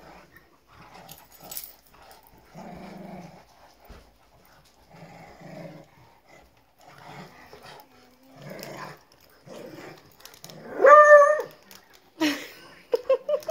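Two dogs, a Bernese mountain dog and a beagle, play-growling during a tug-of-war over a toy, with low growls about every second or two. About eleven seconds in comes one loud drawn-out bark, then a few short quick yips near the end.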